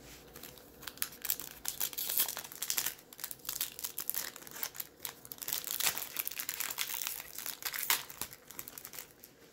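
Shiny foil wrapper of a 2021 Topps Series 1 baseball card pack crinkling and being torn open, a dense run of rapid crackles that swells and eases several times.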